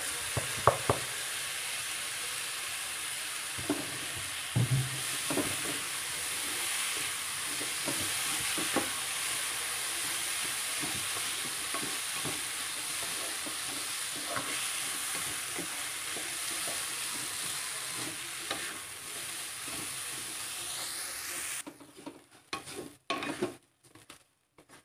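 Raw rice sizzling in hot olive oil with sliced onion and garlic in a nonstick wok, stirred with a spatula that knocks and scrapes against the pan now and then; the rice is being toasted until dry. The sizzle cuts off suddenly near the end, leaving a few scrapes.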